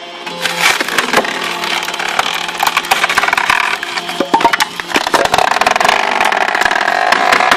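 Wood cracking and splintering as a homemade firewood processing machine works through a log, a dense run of sharp cracks and crunching over the steady hum of the machine.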